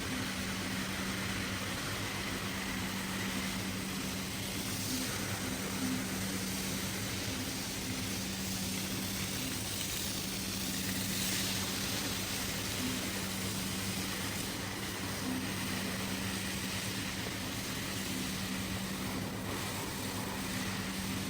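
A motor-driven machine running steadily, with a constant hum and a hiss.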